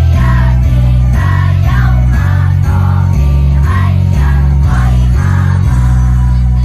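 Children's choir singing over a loud backing track with a heavy, stepping bass line.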